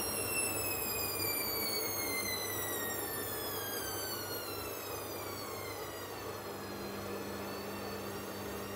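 Hisense front-loading washing machine winding down at the end of its spin cycle: the drum motor's high whine falls steadily in pitch as the drum slows, then levels off about six and a half seconds in.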